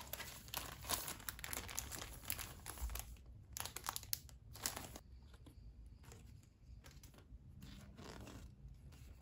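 Clear plastic cellophane sleeves crinkling as the cards inside them are handled, densely crackling for about five seconds, then sparser rustles with a short burst again near the end.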